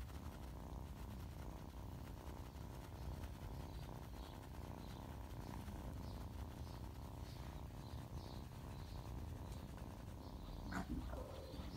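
Orange-and-white kitten purring: a steady, low, fast-pulsing rumble. A brief sharp sound comes near the end.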